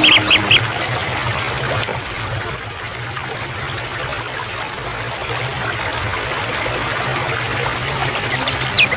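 Water trickling steadily, like a small stream. A few short falling chirps sound in the first half-second and again near the end.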